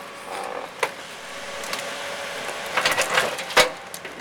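Excavator wrecking a Mercedes 300D's body: scattered sharp metal crunches and bangs, a cluster about three seconds in and the loudest just after, over a steady hum of the machine.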